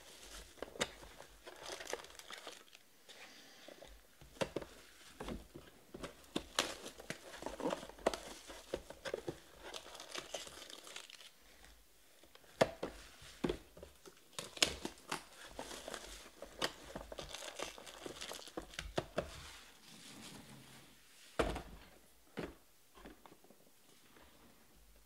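Plastic shrink wrap crinkling and tearing as a sealed trading-card box is unwrapped and opened, then foil card packs rustling and clicking as they are lifted out and stacked. A single louder knock comes about twenty-one seconds in.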